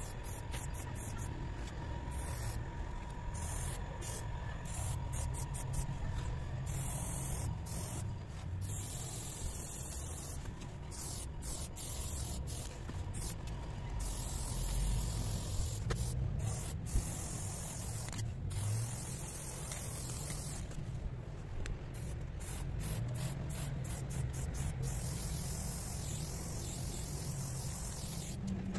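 Aerosol spray-paint can hissing against a wall, the nozzle pressed and released over and over so the hiss comes in short and longer bursts with brief gaps between. A steady low rumble runs underneath.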